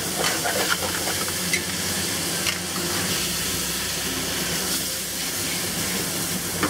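Shrimp and garlic sizzling and steaming in a hot wok just after a splash of Shaoxing wine, a steady hiss. A metal utensil clicks and scrapes against the pan now and then as the shrimp are stirred and tossed.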